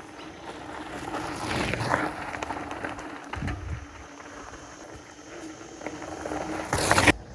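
Mountain bike being ridden on a dirt bush trail: tyre and trail noise mixed with wind on the microphone, swelling and easing, cut off briefly near the end.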